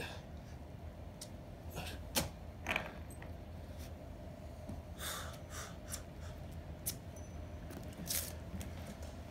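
Scattered taps, clicks and scuffs of trainers and gloved hands on a wet rooftop surface as a person gets up from the ground and takes a few steps, over a steady low hum. The sharpest clicks come about two seconds in and again near seven seconds.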